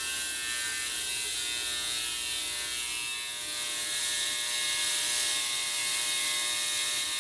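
Ultrasonic cleaner running with its tank of Mr. Clean solution, a steady hum with a bright hiss on top, as it cleans uncured resin off 3D prints.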